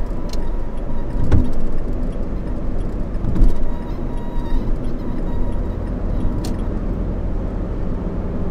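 Smart 453 driving: steady road and drivetrain rumble heard inside the small car's cabin, with a few faint clicks.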